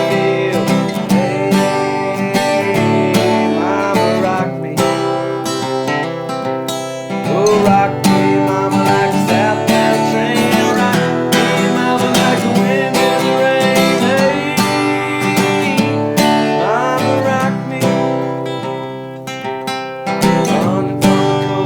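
Instrumental country music led by picked and strummed acoustic guitar.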